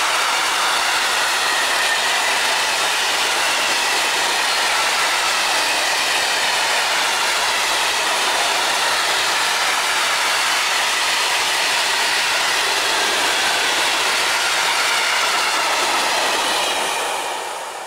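Container train of loaded flat wagons rolling past: a steady loud noise of wheels running on the rails with faint ringing tones, dying away near the end as the last wagons clear.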